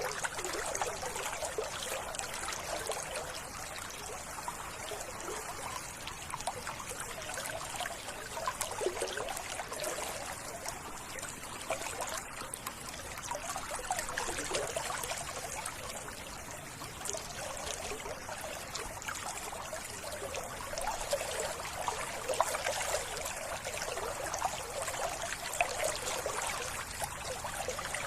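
Water in a small stream trickling steadily, with a continuous rushing hiss.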